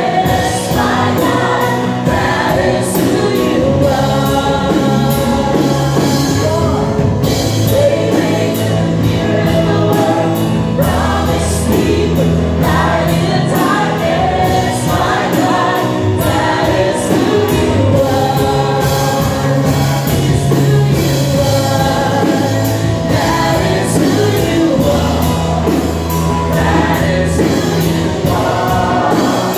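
Gospel worship song: a choir singing over instrumental accompaniment, with a steady beat carried by bright cymbal-like ticks.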